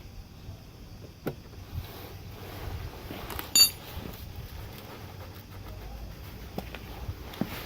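Objects being handled: a few light knocks and one sharp, short ringing metallic clink about three and a half seconds in, over a low background hiss.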